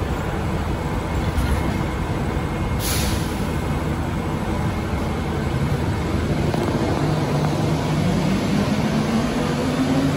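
Bombardier Innovia APM 100 rubber-tyred people-mover train departing. A short hiss of air comes about three seconds in. From about seven seconds the traction motors' whine rises steadily in pitch over the running noise as the train accelerates away.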